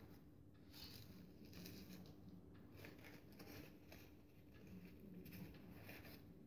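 Near silence: faint room tone with a low steady hum and soft rustling of crepe paper being handled.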